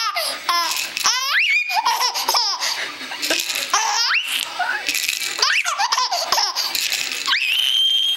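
Young baby laughing hard in quick high-pitched bursts, ending in a long held squeal near the end.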